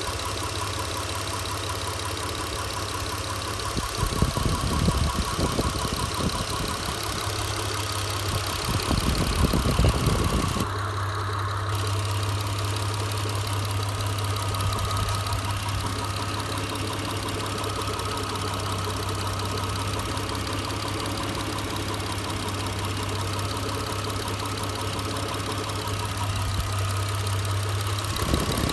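Mitsubishi 6G72 3.0-litre V6 engine idling steadily, with two louder spells about four and nine seconds in. Something is knocking in the engine, the fault its owner is trying to trace.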